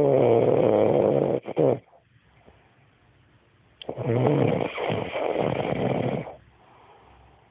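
A woman snoring in a slow, regular rhythm. Two long snores about four seconds apart: one at the start, ending with a brief extra burst, and one about four seconds in lasting over two seconds, with quiet breathing between them.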